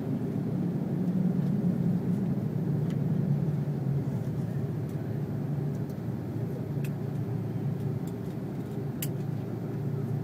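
Steady low rumble of an Airbus A330-300's engines and airflow heard inside the passenger cabin, with a few faint ticks.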